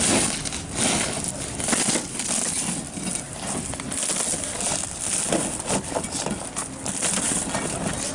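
Steel pry bar working a cracked laminated car windshield: an irregular run of crunching, crackling glass scrapes as the bar is pushed and levered along the glass.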